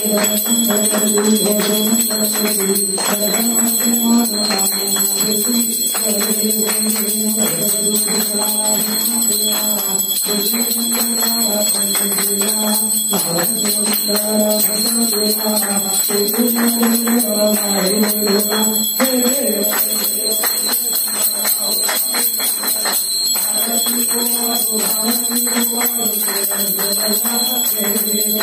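Devotional singing during a Ganesh puja, with a bell ringing without a break and fast, continuous percussive strikes.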